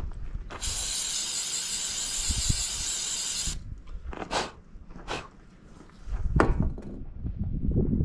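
Aerosol spray can hissing in one steady blast of about three seconds, then a few sharp metal clicks and knocks of parts being handled.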